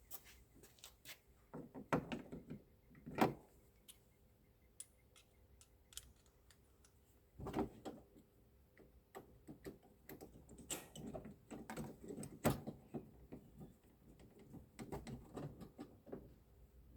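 Irregular clicks, knocks and rattles of tailgate parts and fasteners being handled and fitted as the tailgate is put back together, with sharper knocks about three seconds in and again near the middle.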